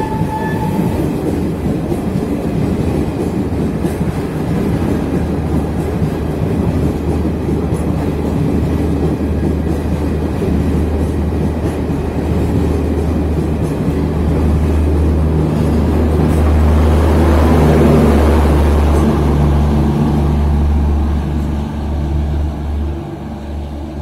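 Passenger train's ICF coaches rolling past at close range: a steady rumble and wheel clatter. Past the middle it grows loudest, with a low steady hum from the old ICF power car's diesel generator going by, then fades as the end of the train clears. A steady high tone cuts off within the first second.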